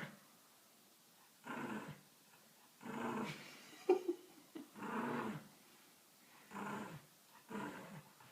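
A dog growling in a run of short, pitched grumbles, about one every second and a half, that sound like a motorcycle engine. A brief sharp sound about four seconds in is the loudest moment.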